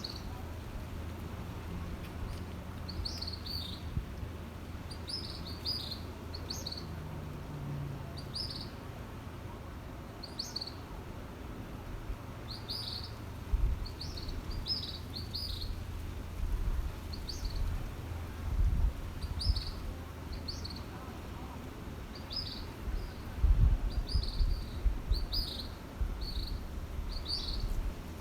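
Small birds chirping, short high chirps about one or two a second, over a low steady rumble. A few louder low rumbles break in, the loudest about three quarters of the way through.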